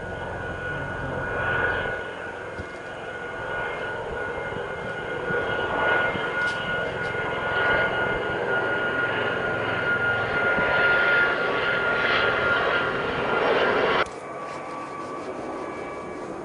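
An engine running steadily with a high whine over a rushing noise that swells and fades, cut off abruptly about fourteen seconds in, leaving a quieter steady noise.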